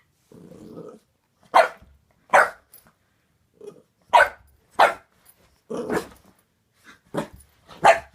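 Boxer puppy giving a low growl, then about seven short, sharp barks at a squeaky toy, warning off a toy she is wary of.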